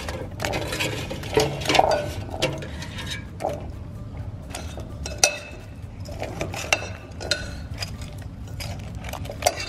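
Cooked chicken wings dropped one after another into a glass bowl of sticky sauce and tossed, with irregular clinks and knocks against the glass, a few of them sharp and ringing.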